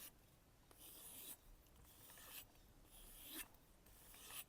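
Knife blade drawn in light strokes across a kangaroo-tail leather strop: about three faint swishes, each roughly a second long.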